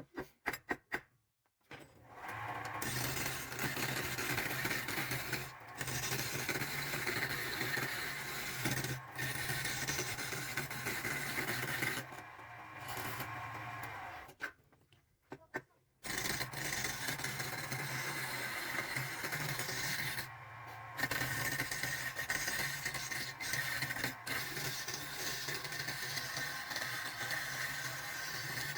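Electric woodworking power tool running with a steady hum and hiss as it works wood, after a few clicks at the start. It stops for a moment about halfway through, starts up again, and dips briefly a few seconds later.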